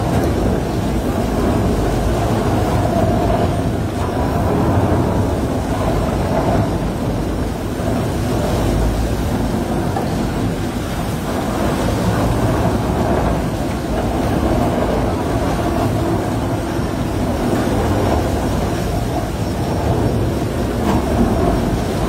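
Tunnel boring machine running at breakthrough: a steady, loud rumble of heavy machinery that holds constant throughout.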